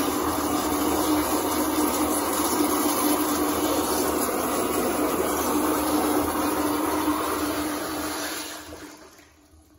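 A 1950s–60s Gerber rear-spud commercial toilet flushing on its flushometer valve: a loud, powerful rush of water with a steady hum under it. About eight seconds in the rush dies away as the valve shuts off.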